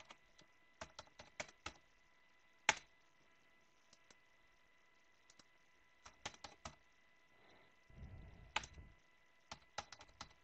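Computer keyboard keystrokes: short runs of typing with pauses between them, and one louder single click about two and a half seconds in.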